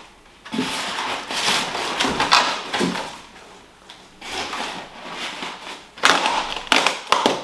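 Plastic wrap crinkling and rustling as it is pulled at and picked away from a new oven held in polystyrene packing, in irregular bursts with a louder, sharper flurry near the end.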